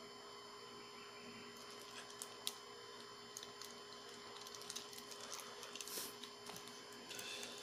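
Faint crinkling and light clicks as sunglasses in a plastic sleeve are handled and moved, over a steady electrical hum.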